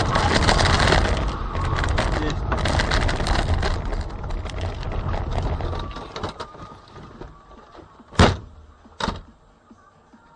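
A car's engine and road noise with rapid rattling clicks, dying away after about six seconds, then two sharp bangs less than a second apart.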